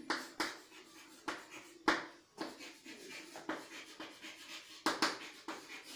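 Chalk writing on a chalkboard: irregular short taps and scratches as letters are written out, with louder taps about two seconds and five seconds in.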